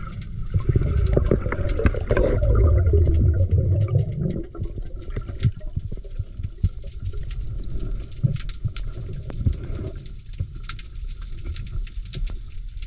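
Underwater sound from a submerged action camera as a snorkeler dives down: a heavy muffled rumble of rushing water for about the first four seconds, then a quieter wash of water with many small clicks and crackles.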